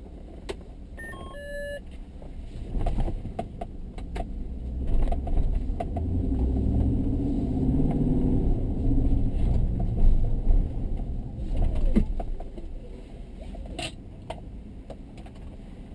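Vehicle engine rumbling, building up through the middle and easing off again, with knocks and rattles over it. A short run of electronic beeps about a second in.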